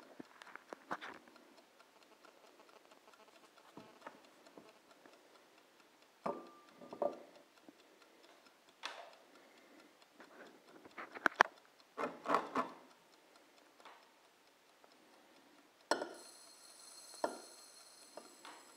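Scattered knocks and glassy clinks as a chunky phone is handled and set down inside an empty pint glass. Near the end, a high hiss comes in as sugar starts pouring into the glass.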